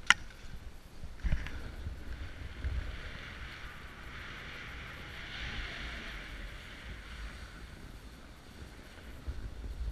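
Snow hissing and scraping under a rider's edges while sliding down a groomed ski piste, with wind rumbling on the camera microphone. A sharp knock right at the start and a smaller one about a second later.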